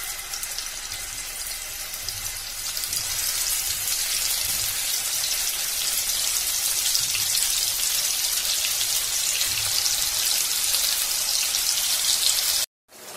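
Marinated chicken tikka pieces sizzling in hot oil in a frying pan, a steady crackle that grows louder over the first few seconds as more pieces are laid in, then cuts off abruptly near the end.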